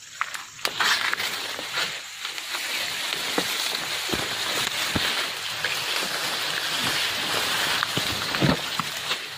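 Grass stems and fern fronds rustling and scraping against the camera as it is pushed through dense undergrowth, with scattered crackles and snaps of stems underfoot. The rustle starts about a second in and stops sharply at the end.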